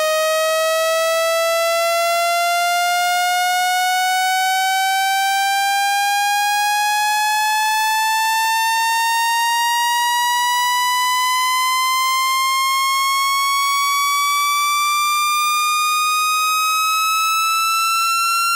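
Speaker-cleaning water-eject tone: a single buzzy electronic tone rising slowly and steadily in pitch, made to vibrate a phone speaker's diaphragm and drive trapped water out through the grille.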